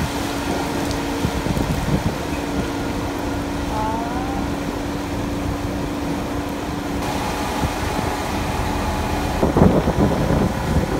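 Small boat's engine running steadily, with wind noise on the microphone.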